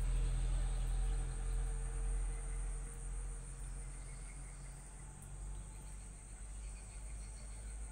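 Steady high-pitched chirring of insects in the background, with a low rumble that fades away over the first few seconds.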